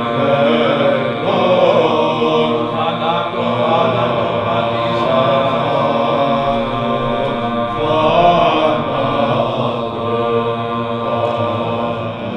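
Orthodox monks' unaccompanied Byzantine chant, several men's voices singing a melody over a steady low held note, softening near the end.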